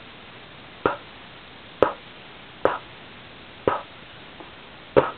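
A woman's lips making short, sharp "pa" pops, puffs of breath blown at a puppy's face, about one a second.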